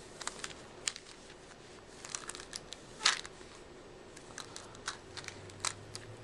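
Scattered small clicks and light plastic crinkling from hands handling a plastic pill bottle and its plastic packaging, with a slightly longer, louder rustle about three seconds in.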